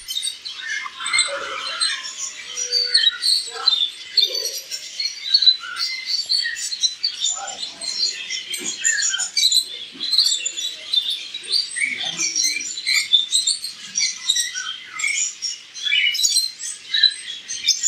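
A room full of small caged birds chirping and twittering together: many short, high, overlapping chirps in a steady chatter.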